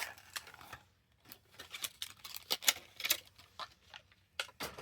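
Plastic blister packaging of a carded diecast car crackling and clicking as it is opened by hand: short, sharp snaps at irregular intervals.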